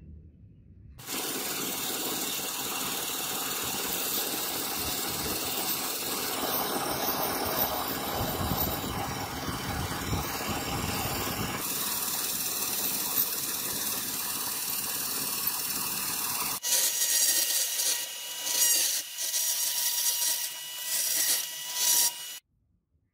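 Power tools grinding brass razor handle scales in a run of short clips. A steady abrasive grinding hiss from a sanding belt against the brass comes first. About two-thirds of the way in, a small rotary tool with a mounted abrasive stone takes over, whining at a steady pitch and grinding in loud bursts as it bites.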